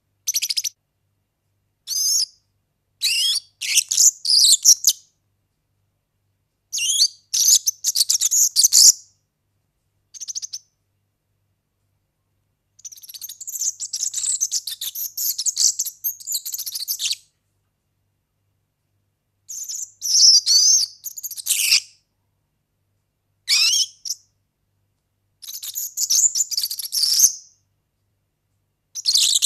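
European serin singing: about ten bursts of its high, fast, jingling song, mostly short, with a longer phrase of about four seconds near the middle, separated by gaps of dead silence.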